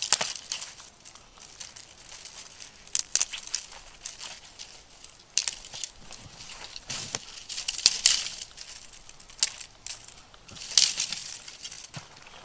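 Snow crunching in irregular sharp bursts, spaced a second or two apart.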